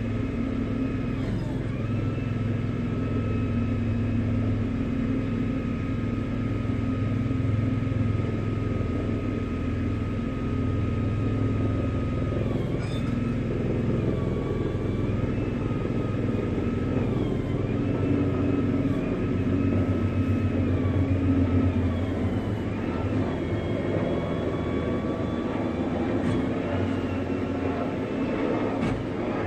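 Wrecker's engine running with a steady rumble under a high hydraulic whine that dips in pitch several times.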